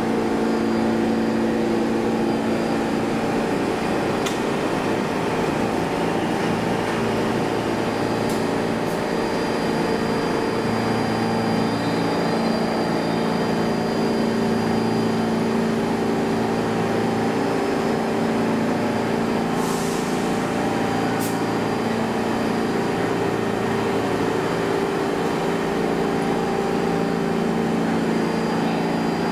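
R46 subway car standing in the station, its onboard equipment humming steadily in several held tones, with a few brief clicks.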